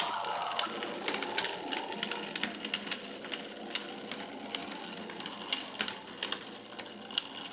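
Plastic wind-up robot walking under its clockwork spring: the gear train whirrs while its feet click on the bench about three times a second, the whole growing slowly quieter as the spring runs down.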